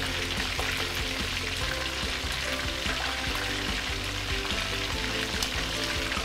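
Chicken pieces deep frying in a wok of hot oil: a steady, busy sizzle with fine crackling.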